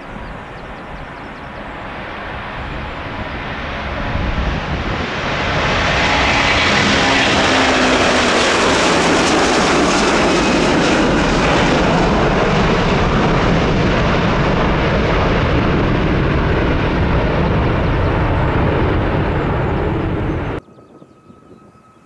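Jet airliner passing close, its engine noise growing louder over the first five seconds, with a low tone falling in pitch as it goes by, then cutting off suddenly near the end.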